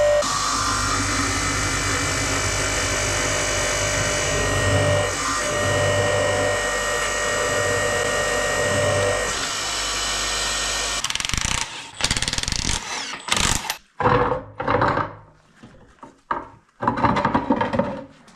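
Vertical log splitter's motor and hydraulic pump running steadily with a whine, cutting off about eleven seconds in. A run of irregular knocks and scraping noises with short gaps between them follows.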